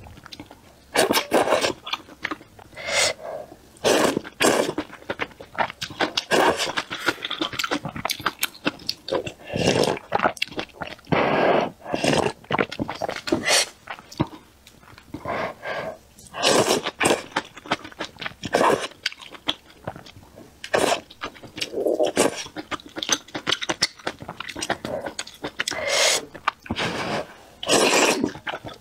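Repeated loud slurping of thick potato noodles and spicy soup, short slurps at uneven intervals, with quieter chewing in between.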